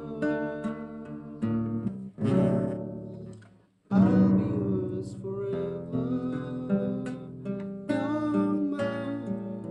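Nylon-string classical guitar played solo, chords and single notes ringing out. The playing stops briefly about three and a half seconds in, then comes back with a loud chord.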